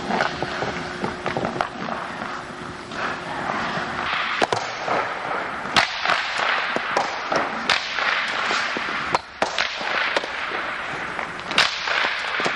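Ice hockey skates scraping across rink ice, with about five sharp cracks of sticks and pucks striking.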